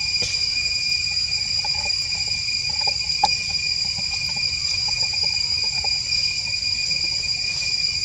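Steady, high-pitched chorus of insects droning without a break, with a few faint short chirps in the first half and a single sharp click a little over three seconds in.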